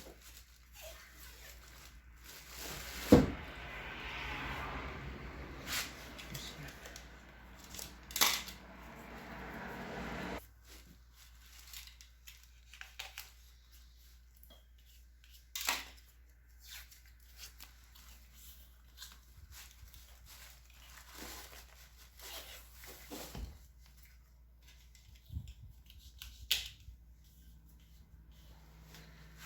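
Tape being pulled off the roll and wrapped around a motor's wire joint: several seconds of peeling, tearing tape noise, with a loud sharp knock about three seconds in and scattered clicks and taps of handling afterwards.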